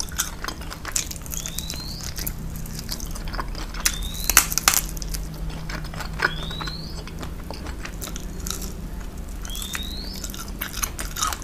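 Close-miked eating of crispy fried frog: biting, chewing and crunching, with crackles as the fried skin and meat are pulled apart. A short rising chirp comes back every two to three seconds.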